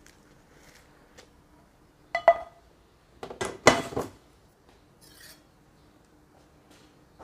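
Kitchen utensils knocking against cookware and the worktop: a sharp clink with a short ring about two seconds in, then a quick clatter of several knocks about a second later.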